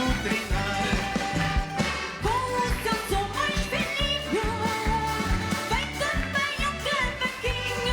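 Portuguese folk song played by a concertina group: concertinas with singing over a steady bass and drum beat.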